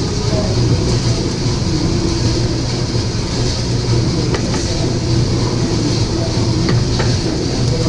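Probat L5 drum coffee roaster running mid-roast: a steady, loud machine hum and rushing noise of the rotating drum, fan and burner with the beans tumbling inside, and a few faint clicks in the second half.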